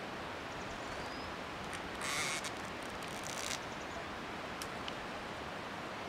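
Open-air field hiss, with a short rustling scrape about two seconds in and a weaker one about three and a half seconds in, from an ox-drawn wooden plough being worked through dry soil.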